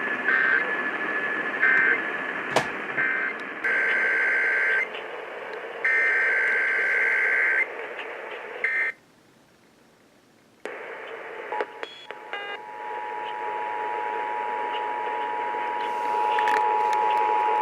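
Emergency Alert System tones received over AM radio with static. A run of short and longer bursts of warbling digital data tones is followed by a second or two of dead air, then the steady two-tone EAS attention signal comes in about two thirds of the way through and holds.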